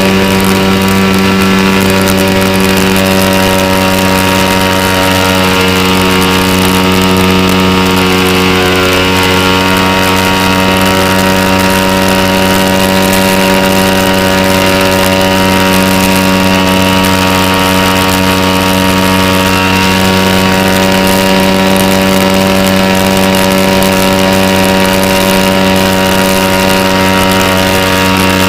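Sig Kadet Senior model airplane's engine running at a steady speed in flight, heard loud and close from onboard the plane.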